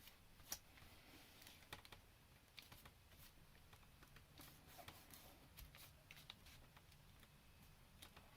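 Faint, scattered light taps and clicks of card being handled and pressed together while gluing a paper lantern section, against near silence.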